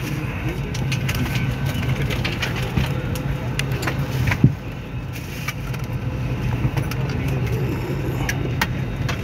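Steady low hum of an Airbus A320 airliner cabin, with scattered clicks and knocks from bags and overhead bins being handled and one sharper knock about four and a half seconds in, over faint passenger chatter.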